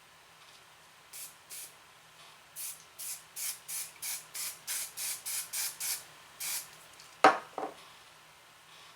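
Hair spray bottle giving a rapid series of about fourteen short squirts, then two sharp knocks near the end.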